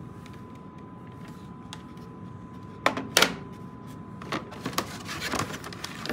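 Handling noise while unboxing: scattered clicks and knocks of a device and its parts being picked up and moved, the loudest two about three seconds in, with several lighter taps later.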